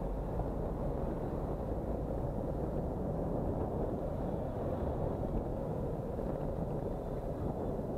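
Steady, dull rumble of wind on a bicycle-mounted camera's microphone while riding, mixed with the traffic noise of a busy city street of buses, trams and taxis.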